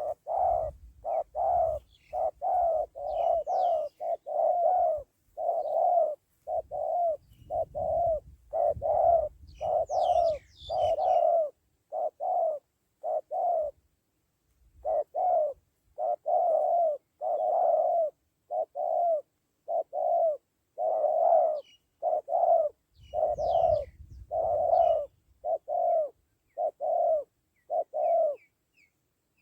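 Spotted dove cooing over and over: a long run of short, low coos with a pause about halfway through. Faint chirps of small birds and a low rumble come and go underneath.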